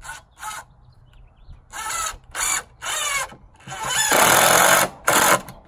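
Craftsman V20 cordless drill driving screws into the wooden counter framing. A few short trigger pulls, the motor whine rising and falling, come first, then a longer, louder run about four seconds in and one last short burst.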